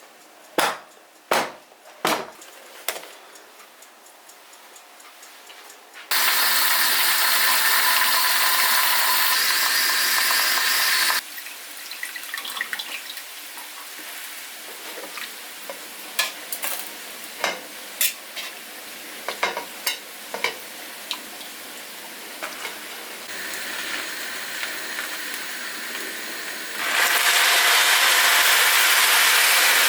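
Kitchen cooking sounds. A few sharp clicks open it, then a loud steady hiss starts and stops abruptly about five seconds later. Scattered clinks and knocks follow over a fainter hiss, and the loud hiss starts again near the end.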